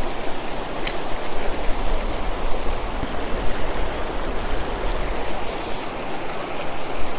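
River water rushing steadily over rocky shoals and small rapids, with one short click about a second in.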